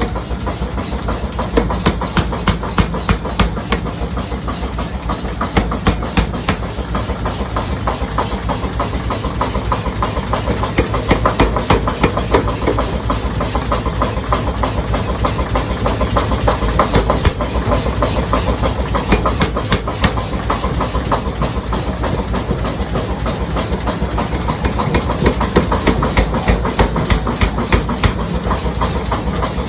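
Factory metalworking machinery running with a steady, rapid clatter of repeated knocks, several a second, over a continuous hiss.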